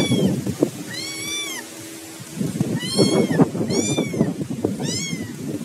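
A cat meowing repeatedly: five short, high meows, each rising then falling in pitch, about one a second, over a rustling of dry leaves on the ground.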